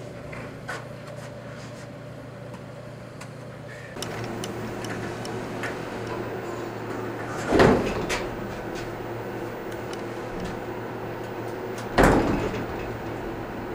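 Passenger elevator with a steady hum; its sliding doors move twice, once about halfway through, after a floor button is pressed, and again near the end.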